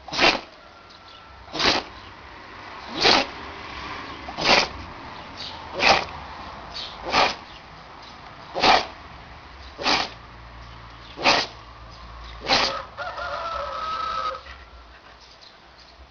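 An animal sneezing over and over, ten short sharp sneezes evenly about a second and a half apart. Near the end comes a brief pitched sound about a second and a half long.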